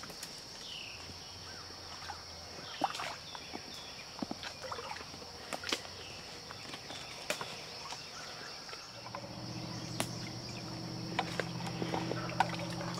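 Footsteps crunching and snapping through twigs and leaf litter in woodland, as short irregular clicks, over a steady high insect drone with a few bird chirps. About nine seconds in, a low steady hum joins in.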